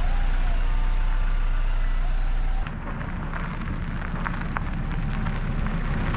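A car's engine running close by. After a cut about two and a half seconds in, the car creeps toward the camera over a leafy dirt track, with scattered small crackles of the tyres on leaves and grit over the engine hum.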